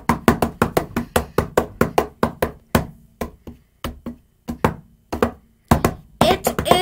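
A child's hand-drummed drum roll: quick knocks on a hard surface, about five a second, with two short breaks and a few louder hits near the end. His voice then rises into a held, sung note.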